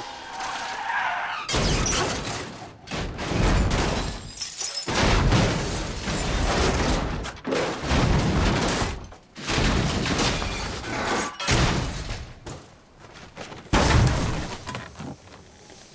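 An Aston Martin DBS crashing and rolling over: a series of heavy crashes of crumpling metal and shattering glass, with short lulls between them and one last sharp crash near the end.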